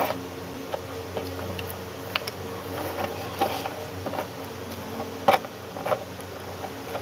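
Phone handling noise: scattered taps and knocks on the phone held close to its microphone, the loudest at the start and twice about five to six seconds in, over a steady low hum.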